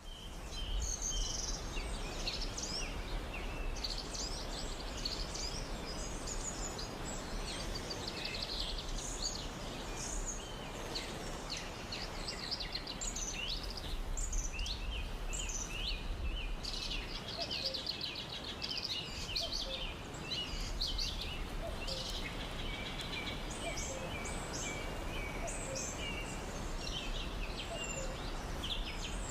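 Several birds singing and chirping over a steady rushing background noise.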